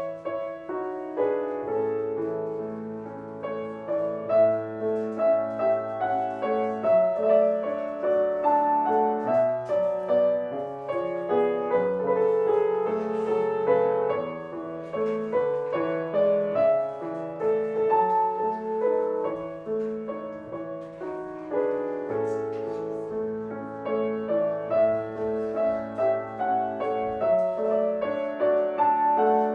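Instrumental piano music: a flowing melody over sustained bass notes.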